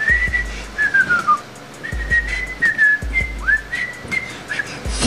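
A man whistling a halting tune of short, wavering notes, several of them sliding down in pitch; by his own word he doesn't know how to whistle. A few dull low bumps sound underneath.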